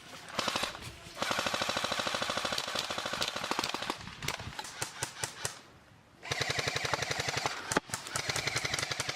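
Airsoft rifle firing on full auto in long rapid bursts, with a few separate shots between them.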